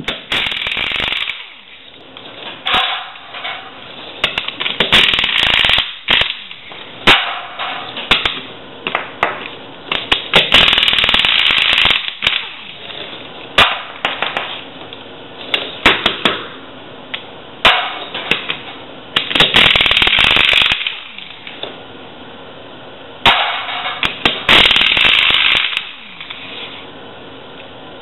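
Air impact wrench running in repeated bursts of a second or two, loosening the lug nuts of a Chevrolet G30 van's eight-lug wheel, with sharp clicks and knocks between the bursts.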